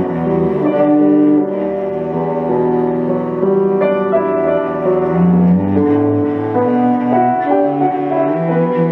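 Cello and piano playing a classical sonata together, held cello notes over piano.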